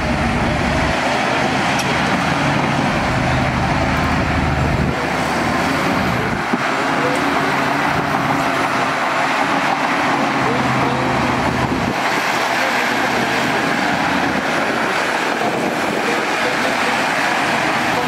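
Heavy diesel earthmoving machinery running loudly and continuously, chiefly a Shantui crawler bulldozer working close by, its deep engine note shifting several times.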